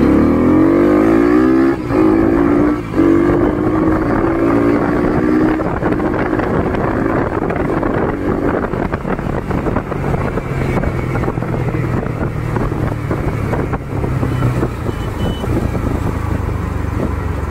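Bajaj Pulsar NS200's single-cylinder engine, with a custom exhaust, revving up hard under acceleration, its pitch rising. It dips twice briefly, about two and three seconds in, then pulls steadily. After about six seconds a steady rush of wind and road noise takes over, with the engine lower underneath.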